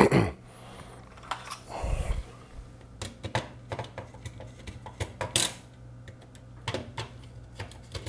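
Small screwdriver working screws out of a garage-door keypad's circuit board and plastic housing: an irregular scatter of light clicks, ticks and taps, with a slightly louder clatter about five seconds in.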